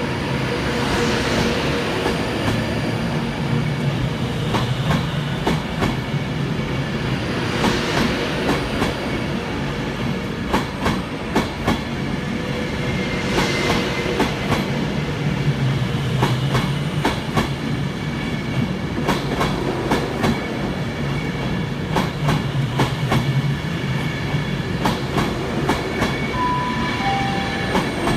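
A train running on the rails: a steady low rumble with many sharp clicks of wheels over rail joints, the hum swelling and fading several times.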